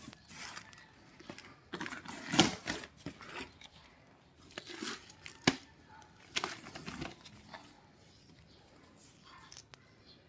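Packaging crinkling and rustling in irregular bursts as it is handled, with a few sharp crackles; it dies down near the end.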